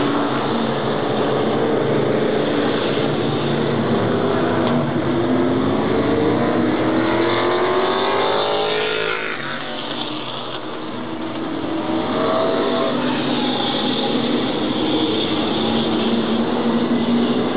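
Race car engines running hard on an oval track. One car's engine climbs in pitch as it accelerates past about eight seconds in, the sound dips briefly, then the engines of the following cars swell again.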